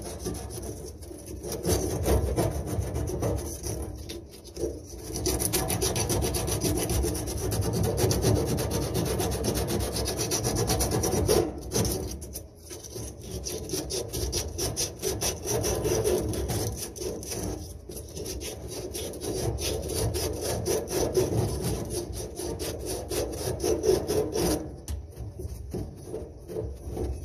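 Emery cloth being rubbed back and forth on the metal shaft of a Kenmore dryer's drum-support wheel: a fast, continuous rasping scrub. It pauses briefly a few times and stops a couple of seconds before the end. This polishes the shaft before a new wheel goes on.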